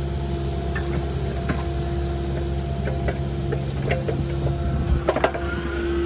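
Kubota KX080-4 excavator's diesel engine running steadily under hydraulic load, with a held hydraulic whine. A few short clicks and knocks from the working attachment, the loudest cluster about five seconds in.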